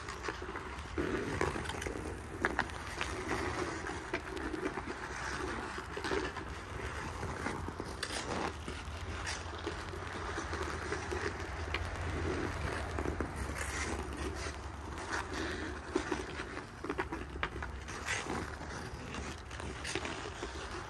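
Ice-hockey skate blades carving and scraping across outdoor rink ice in repeated strides and turns, with occasional sharp clicks.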